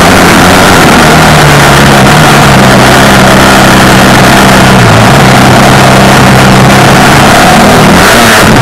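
Off-road vehicle's engine running loud and fairly steady, its pitch dipping briefly about five seconds in and again near the end before picking up, under a heavy rushing noise.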